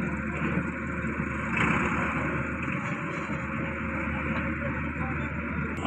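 Daewoo Solar 130 wheeled excavator's diesel engine running steadily under load while its boom and bucket dig soil, swelling briefly just under two seconds in.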